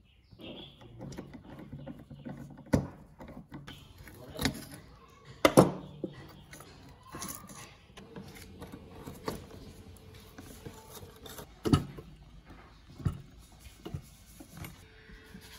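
Screwdriver turning screws in a rusty steel lamp base around a porcelain bulb socket: the bit scrapes and grinds in the screw heads, with a handful of sharp metallic clicks and knocks. The loudest click comes about five and a half seconds in.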